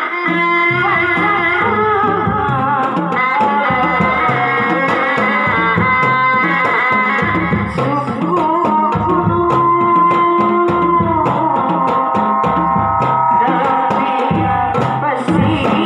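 Sundanese reak ensemble playing: dogdog drums beating a fast, repeating interlocking rhythm under a long-held, wavering melody, with the melody's pitch sliding down a little past the middle.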